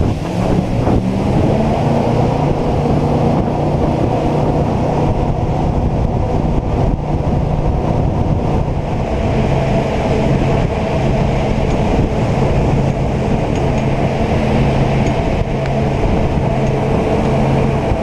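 Jet boat engine running under way: a steady, loud drone over the rush of water and wind. The engine's pitch climbs in the first second or two, and a higher rushing hiss grows about halfway through.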